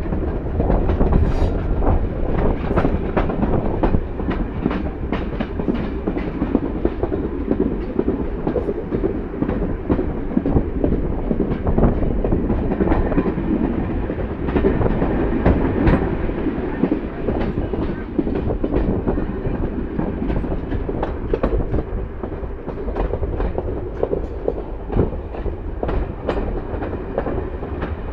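A moving passenger train heard from a carriage window: a steady rumble of wheels on rails, with frequent sharp clicks from the wheels running over rail joints.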